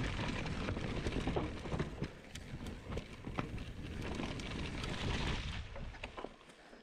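29er mountain bike ridden fast down a dirt singletrack: tyres rolling over the dirt, with a low rumble and many short rattling knocks from the bike. It fades out near the end.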